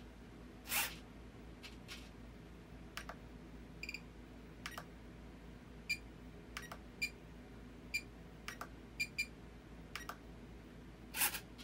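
Short electronic beeps and clicks from an RC transmitter's buttons at irregular spacing, as the aileron channel is being reversed, with two louder brief rustling bursts, one about a second in and one near the end.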